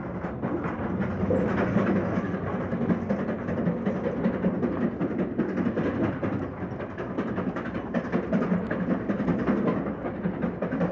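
Locomotive-hauled train running steadily, a continuous low rumble with dense, rapid rattling and clatter.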